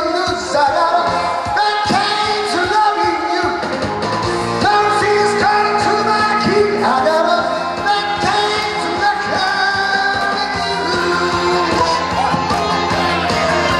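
A man singing a pop song into a handheld microphone over amplified backing music, with held, bending notes.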